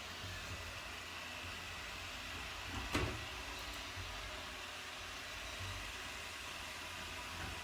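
Shark ION R75 robot vacuum running with a steady hum and faint whine, and one sharp knock about three seconds in.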